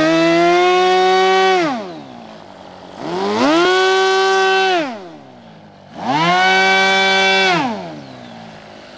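Nitroplanes Kangaroo RC airplane's small engine revved to full throttle three times, each time climbing in pitch, holding about a second and a half, then dropping back to a low idle: a pre-flight run-up, which the pilot judges to sound good.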